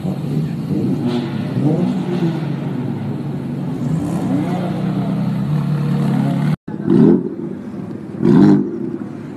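A sports car engine idles steadily with a low, even note. After a cut, a quad-exhaust BMW coupe's engine gives two short, loud revs about a second and a half apart.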